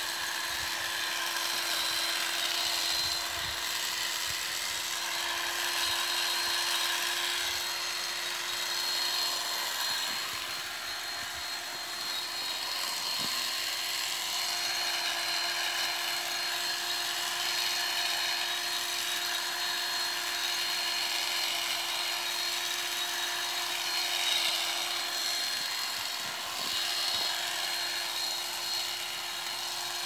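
Small corded electric cutting tool running steadily as it cuts lavender stems: a constant motor hum with a high whine over a hiss.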